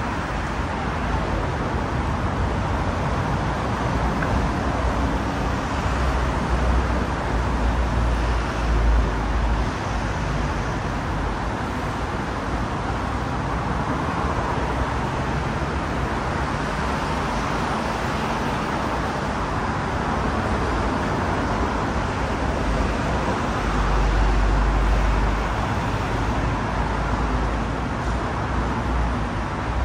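Steady road traffic noise on a busy city street, with a deep rumble swelling twice, about a quarter of the way in and again near the end, as heavier vehicles go by.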